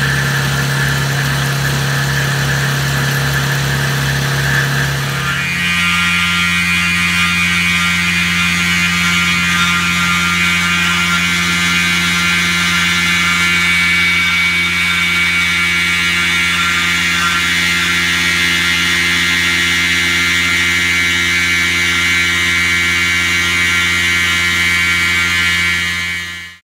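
Tormach PCNC 1100 CNC mill cutting aluminium with an end mill: the spindle and cut make a steady, loud machining sound with a high ringing tone. About five seconds in, it switches abruptly to a different steady cutting tone, and it cuts off sharply near the end.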